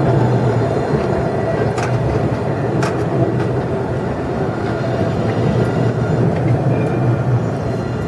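Alstom Citadis tram passing close by: a steady rumble of wheels on the rails with a faint high tone from its drive, and two sharp clicks about two and three seconds in.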